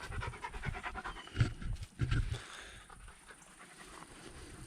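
A dog panting in quick, even breaths, with a few louder knocks in the first two seconds; it grows quieter after about two and a half seconds.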